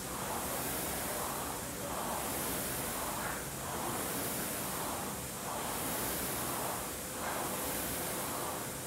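Air-resistance rowing machine's fan flywheel whooshing under a steady rowing stroke, swelling and fading with each pull, about once every two seconds.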